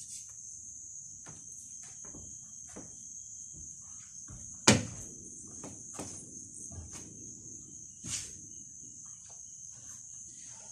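Steady high-pitched insect chorus, like crickets, with scattered knocks and clicks of handling; the loudest, a sharp knock, comes about four and a half seconds in.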